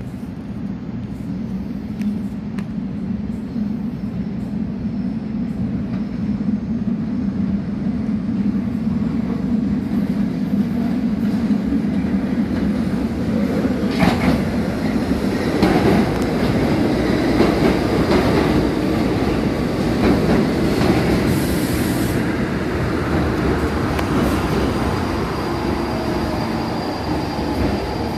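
New York City Subway train approaching and pulling into an elevated station, its rumble building as it comes closer. Wheels knock over rail joints, and a thin, high wheel squeal sets in as the cars run alongside the platform. A falling motor whine near the end marks the train slowing.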